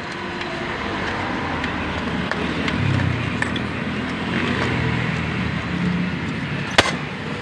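Street traffic, with a motor vehicle's engine running and growing louder about three seconds in. A single sharp click near the end.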